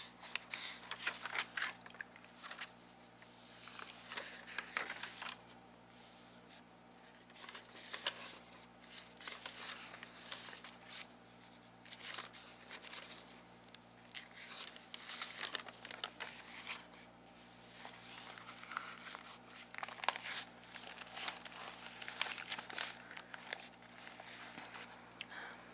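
Pages of a lined paper notepad being flipped and riffled by hand: irregular papery rustles with sharp flicks, in bursts with short pauses.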